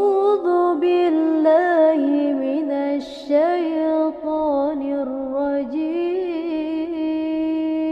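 A single voice chanting Qur'anic recitation unaccompanied, drawn out over long held notes that bend up and down in pitch, ending on one long steady note.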